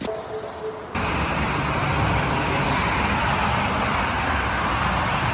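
Steady, even rush of distant motorway traffic, cutting in abruptly about a second in after a quiet moment.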